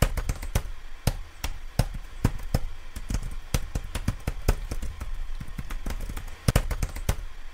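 Typing on a laptop keyboard: quick, irregular key clicks, several a second, over a low hum.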